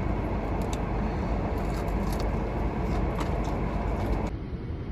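Steady low rumble of a car running, with a few faint clicks. About four seconds in, it changes abruptly to a quieter, duller hum.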